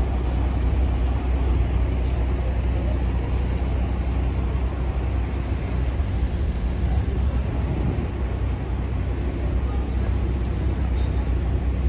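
Steady low rumble of idling bus engines and motor traffic.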